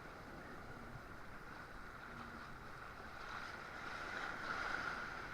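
Steady wash of sea water and wind noise, with no distinct events, growing a little louder in the second half.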